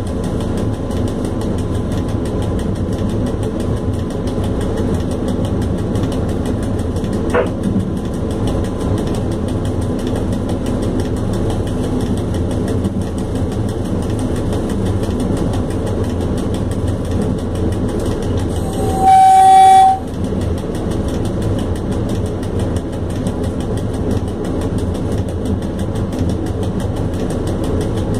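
ET22 electric locomotive running on the line, heard inside its cab: a steady low rumble from the wheels and running gear. A bit past two-thirds of the way through, it sounds a single horn blast about a second long on one steady note.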